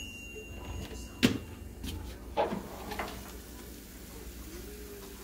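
Toaster oven door being opened: a sharp clack about a second in, then two softer clunks as the glass door swings down. A faint ring from the oven's timer fades out in the first second.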